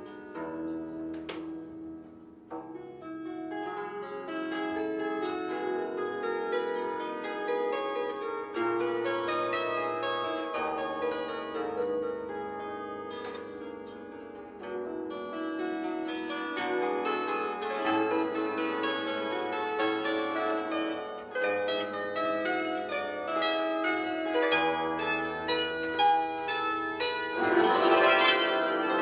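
Bandura played solo: a plucked melody on the higher strings over low bass notes that change every second or two, with a bright, dense run of notes about a second before the end.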